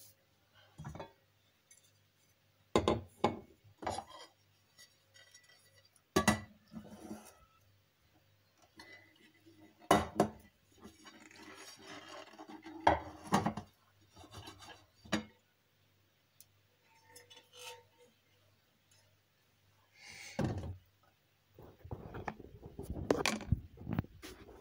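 Cookware and utensils being handled in a kitchen: a dozen or so separate knocks and clinks of pots, dishes and cutlery, a stretch of rubbing or scraping in the middle, and busier clattering near the end.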